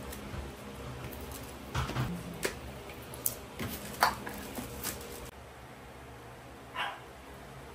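Shih Tzus barking: a string of short barks over a few seconds, the loudest about four seconds in, then a pause and one more bark near the end.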